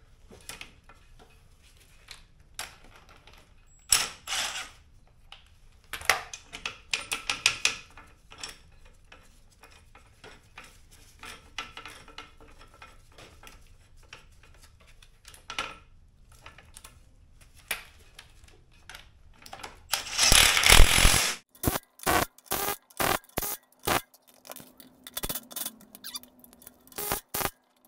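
Metal hand tools clinking and clicking on a strut while spring compressors are worked on a coil spring. The sounds are scattered clicks and clanks, with a dense, loud burst of about a second about two-thirds of the way through, followed by a run of quick clicks.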